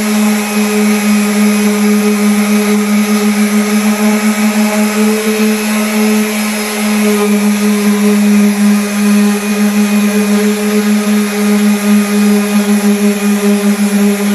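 Electric sander running steadily against wood, a constant motor hum with a hiss of sanding on top that swells and dips a few times a second.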